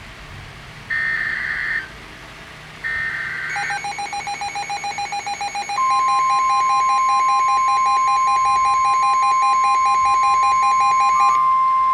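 NOAA Weather Radio emergency alert: two short bursts of warbling SAME digital header data, then a rapidly pulsing electronic beep, the receiver's own alarm. About six seconds in, the broadcast's steady 1050 Hz warning alarm tone starts under the beeping and holds on, marking a tornado warning.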